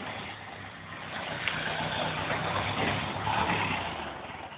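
A motor vehicle's engine running with a steady low hum, growing louder after about a second and easing off near the end.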